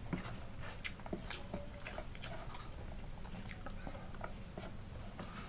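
A person chewing and eating rice by hand, with many short, irregular mouth clicks and smacks.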